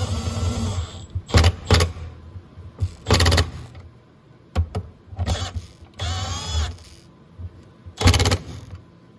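Cordless power driver running in about five short bursts at a low torque setting, snugging the bolts of a windshield center mount into their metal mounts.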